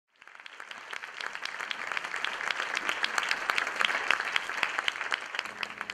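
Audience applauding; the clapping swells over the first couple of seconds and tapers off near the end.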